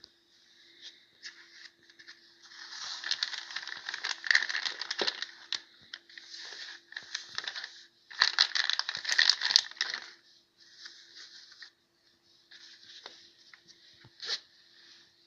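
Packaging of a mail-order parcel being handled and opened by hand: crinkling, rustling plastic with small clicks and taps, in two longer bursts with shorter ones between. A faint steady hum runs underneath.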